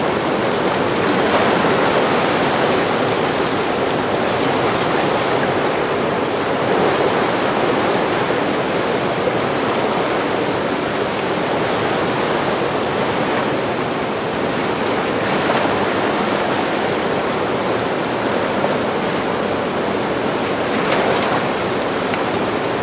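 Turbulent white water of the Zambezi River churning in the Boiling Pot below Victoria Falls: a loud, steady rush of water with no break.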